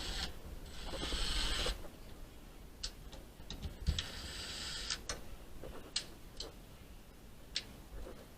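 Short stretches of scraping noise with scattered sharp clicks and taps, as from hand work on building materials.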